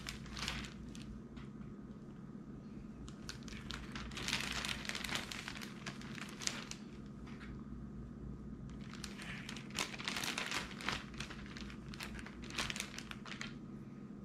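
Clear plastic zipper-seal bag crinkling in irregular bursts as raw fish fillets are pushed and laid flat inside it.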